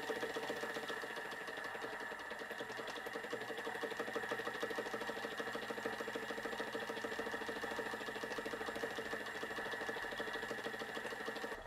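Stuart S50 model steam engine running fast and evenly on live steam, a rapid steady mechanical beat, driving a small dynamo by belt, with the hiss of the boiler's safety valve blowing off at its set pressure of 50 psi.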